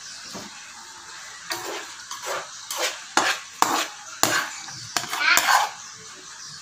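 A metal utensil clinks and scrapes against a pan about ten times in quick succession over a steady sizzle of food frying in the pan.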